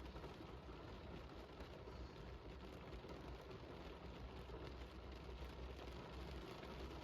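Steady rain falling, faint, over a low steady rumble.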